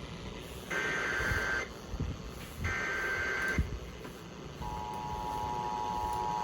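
Emergency Alert System SAME header: two raspy, warbling digital data bursts of about a second each, a second apart. About four and a half seconds in, the steady electronic attention tone begins, signalling that a new warning is about to be read.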